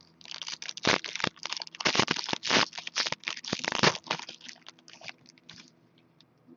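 Plastic-foil wrapper of a hockey trading-card pack being torn open and crinkled: a dense run of crackling and rustling that thins out and stops a little before six seconds in.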